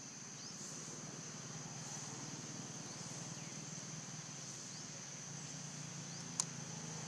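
Insects droning steadily at a high pitch over a low steady hum, with a single sharp click near the end.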